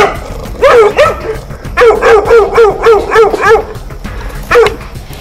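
Pit bull barking in quick runs of short, high, yelping barks, about four to five a second. A short run comes about a second in, then a longer run of about eight barks, then a single bark near the end.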